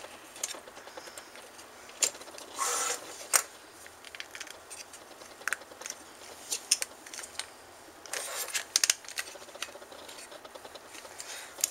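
Plastic clicks, taps and scrapes from the shell parts of an Xbox 360 wireless controller being handled and pressed back together on their plastic tabs. There is a short scrape about two and a half seconds in and a quick run of clicks near the end.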